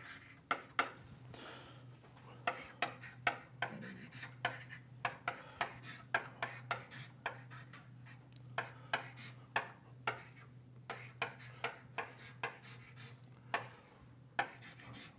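Chalk writing on a blackboard: irregular quick taps and short scratchy strokes as formulae are written out, over a faint low steady hum.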